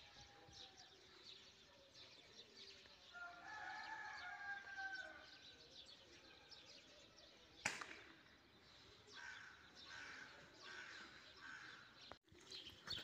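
A single sharp shot from a Spanish Norica 56 spring air rifle fired at a perched bird, a short crack about eight seconds in. Before it, a bird calls faintly for a couple of seconds against near silence.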